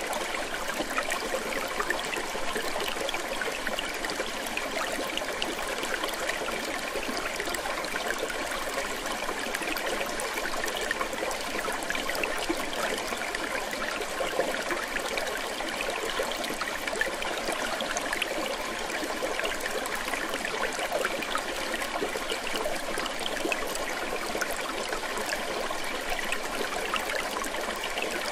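Steady running, trickling water, unbroken and even throughout.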